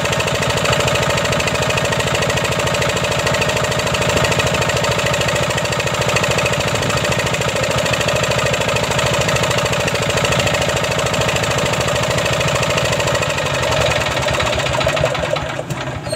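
186F single-cylinder air-cooled diesel engine running with a steady, even firing beat; its injection pump shims have been adjusted to cure misfiring, and it no longer struggles. The sound drops away about a second before the end.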